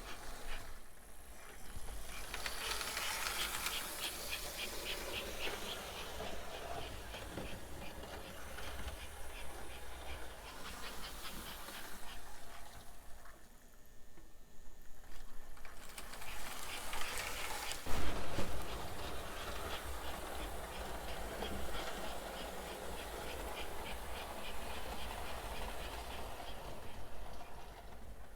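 American Flyer 21004 0-6-0 S-gauge steam locomotive and cars running on the track, with a steady motor and gear whir and a fast ticking of wheels. The sound fades briefly about halfway through, and there is one sharp knock about 18 seconds in.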